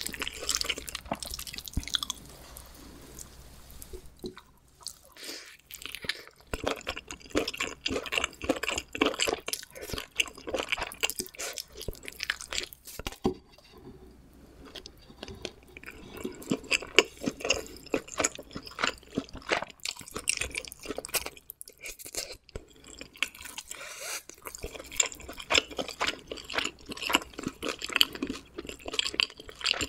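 Close-miked chewing of homemade pizza: crust crunching and wet, sticky mouth sounds in quick trains of crackles, with a few short pauses.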